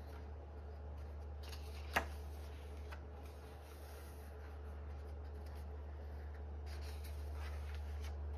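Pages of a softcover photobook turned by hand: paper rustling and sliding, with one sharp tap about two seconds in. A steady low hum sits underneath.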